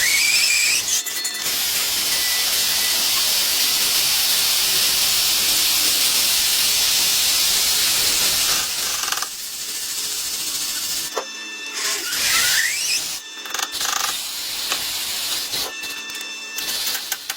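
A loud, steady hiss lasts about eight seconds, then breaks into shorter hissing bursts with gaps between them.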